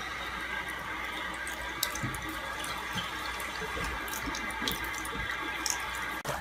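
Tap water running steadily from a bathroom faucet into a ceramic vessel sink, splashing on a cat standing in the basin, with a few small knocks.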